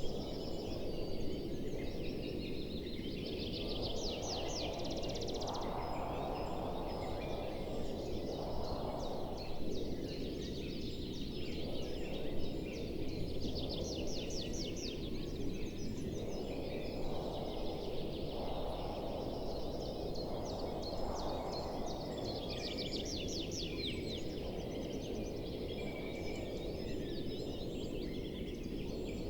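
Birds singing over a steady low background noise. A fast trilling song comes back about every ten seconds, with scattered chirps in between.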